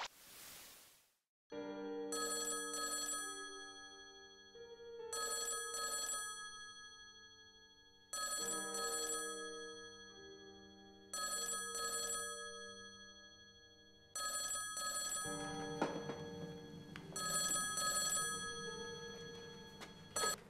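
Desk telephone ringing with a double ring (two short rings, then a pause) repeating about every three seconds, six times, over soft sustained music. A brief whoosh opens it, and a sharp click comes near the end, just before the phone is answered.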